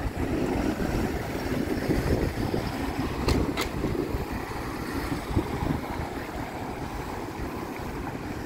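Street traffic and wind rumbling on the microphone of a moving bicycle, with a city bus's engine drawing away ahead, getting slowly quieter. Two short sharp clicks a little over three seconds in.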